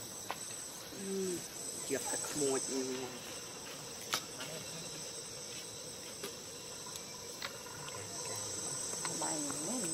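Steady, high-pitched drone of insects chirring, with a few brief voice-like calls about a second in and again near the end, and a single sharp click about four seconds in.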